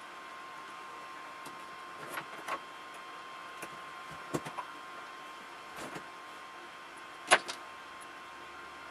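A scattering of small, sharp clicks and taps, as of tools and small metal and plastic parts being handled during work on an RC truck's front hubs. There are about eight, the loudest a sharp click about seven seconds in, over a steady hiss with a faint constant tone.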